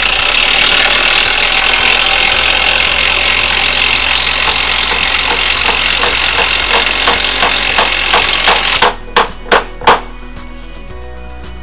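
A power tool runs loud for about nine seconds, a fast rattle coming through in its second half, then stops. Three sharp knocks follow about half a second apart.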